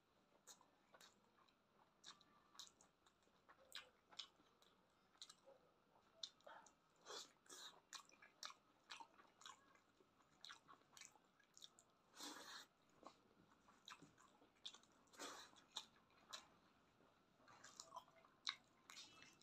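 Quiet, close-miked eating sounds of a person chewing rice and spiced chicken feet: a run of irregular wet mouth clicks, smacks and bites, several a second, with a couple of longer squelchy chews partway through.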